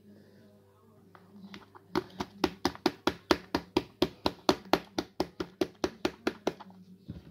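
A foam filter sponge knocked quickly and repeatedly against the rim of a small plastic tub, about five sharp taps a second for some four seconds, starting about two seconds in. The knocking shakes springtails off the sponge into the tub.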